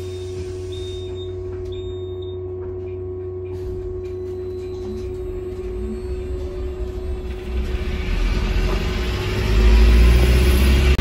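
Inside a Volvo B5LH diesel-electric hybrid bus: three short high-pitched beeps in the first two seconds over a steady hum. From a little past halfway, the drivetrain's low rumble builds and grows loud as the bus gets under way.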